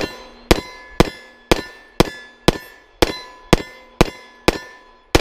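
Glock pistol fired in a steady rapid string, about two shots a second and ten or so in all, with steel targets ringing from the hits between shots.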